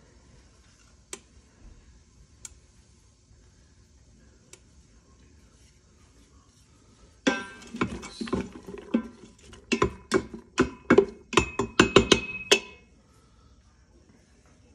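Kitchenware clinking and clattering: a few faint clicks, then about halfway through roughly five seconds of quick knocks and clinks, several of them ringing briefly.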